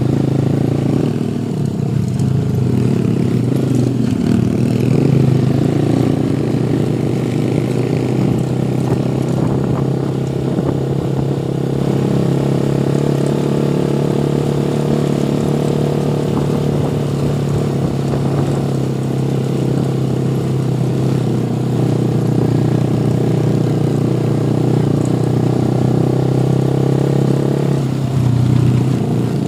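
Motorcycle engine running steadily while riding, with road and wind noise; the engine note shifts briefly near the end.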